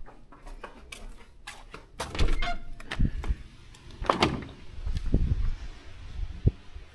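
Scattered knocks, clicks and low thuds, irregular and loudest from about two to five seconds in, with a last single thud near the end.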